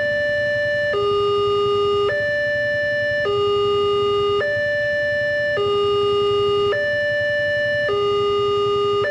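Railway level-crossing warning alarm sounding: an electronic two-tone signal switching steadily between a higher and a lower tone, each held just over a second, while the barrier is down.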